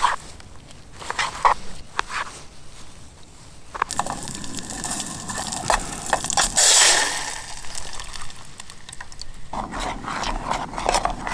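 Camp cooking handling sounds: crinkling, scraping and clicking of packaging and gear, with a steady hiss that starts about four seconds in and cuts off near the end.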